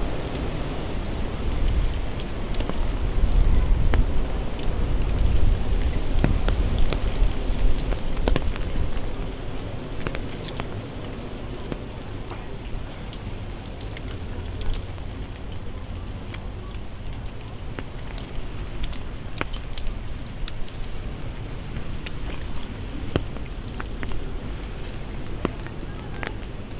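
Rain falling steadily, with many close, sharp raindrop ticks over a soft hiss. A low rumble is strong for the first several seconds, then fades by about nine seconds in.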